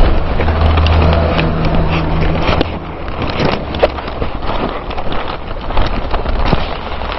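A low vehicle engine hum that fades out about two and a half seconds in, under continuous rustling and knocking from a handheld camera being moved about.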